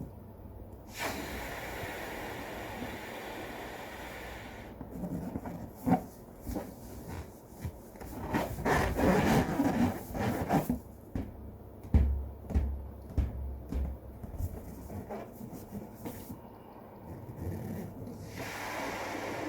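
A latex balloon being blown up by mouth and handled: long breaths of air pushed into it, with the rubber rubbing and scraping against hands between breaths.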